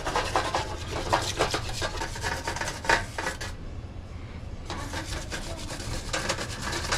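A bicycle chainring being scrubbed clean in a parts-washer tank: quick scratchy rubbing strokes, broken off for about a second midway before starting again.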